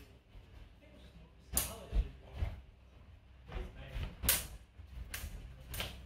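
Steel sparring blades of a short rapier and a spadroon clashing: four sharp metallic strikes, one about a second and a half in and three in quick succession in the second half, with a couple of low thuds between.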